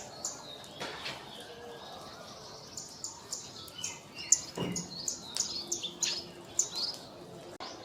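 A flock of scale-breasted munias giving a rapid, busy series of short high chirps, busiest in the second half. There is a soft low bump a little past halfway.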